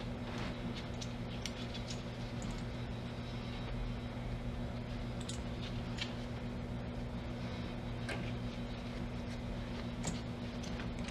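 A steady low hum, with scattered light clicks and taps now and then.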